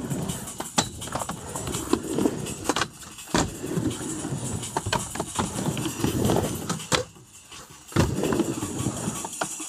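Skateboard wheels rolling back and forth on a concrete mini ramp, with several sharp clacks as the board and trucks hit the coping during tricks, and a brief lull about seven seconds in.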